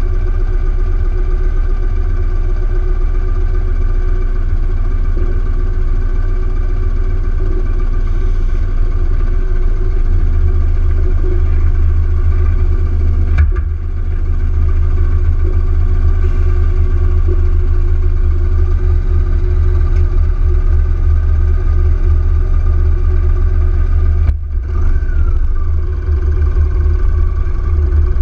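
Yamaha XV1900 air-cooled V-twin motorcycle engine running under way at a steady cruising speed, with a deep, steady engine note. The sound dips briefly twice, about halfway through and again near the end.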